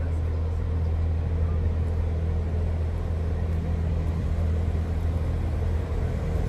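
GM diesel locomotive engine running with a steady low drone.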